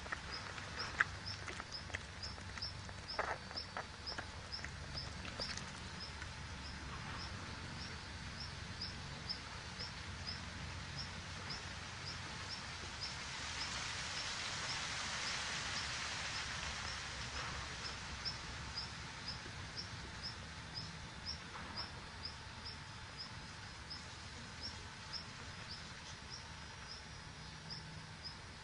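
Outdoor natural ambience: a thin, high chirp repeats about twice a second throughout, over a low rumble. There are a few sharp clicks and rustles in the first few seconds, and a swell of hiss rises and fades in the middle.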